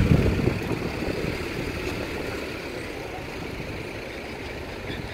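Street traffic with vehicle engines idling in stopped traffic close by, a steady low rumble. It starts abruptly and is loudest in the first second.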